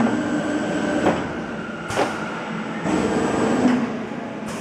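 Factory machinery running steadily with a thin high whine and a low hum, broken by a few sharp knocks, about one a second early on and one more near the end.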